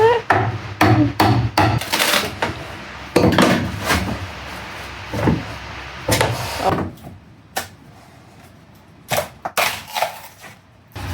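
Irregular knocks, bangs and scrapes of tools prying and breaking out a school bus's wooden floor around a steel seat track. There is a dense run of hits at first, a quieter spell in the middle, and a cluster of sharp hits near the end.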